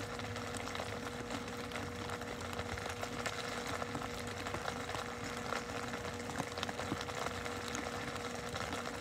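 Steady mechanical hum holding one pitch, with faint scattered clicks.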